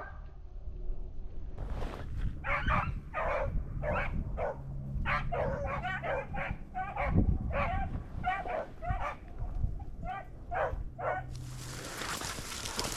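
Beagles baying on a rabbit's scent, a run of drawn-out hound calls about one to two a second, over a low rumble of wind on the microphone. Near the end the baying stops and a steady hiss takes over.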